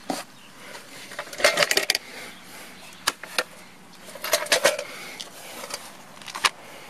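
Light metallic clattering in two short bursts, about one and a half and four and a half seconds in, with a few single clicks between: small metal hardware being handled against wood.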